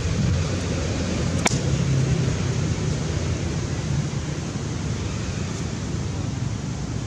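Steady outdoor background noise with a low rumble, and one sharp click about one and a half seconds in.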